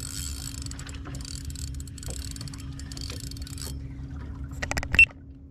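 Spinning fishing reel being cranked against a heavy load, its gears whirring in repeated stretches for about three and a half seconds over a steady low hum. A few sharp clicks follow near the end, the loudest a bright clack about five seconds in.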